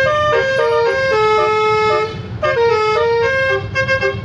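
Basuri telolet multi-tone bus horn playing a fast melody of stepped notes, with one longer held note about a second in. It breaks off briefly a little after two seconds and then carries on. A low rumble runs beneath it.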